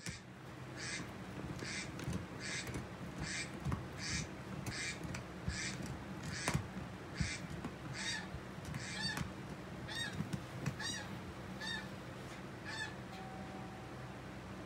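A bird calling over and over: well over a dozen raspy calls, a little more than one a second, that change to shorter falling notes after about eight seconds and stop about a second before the end, over a steady low hum.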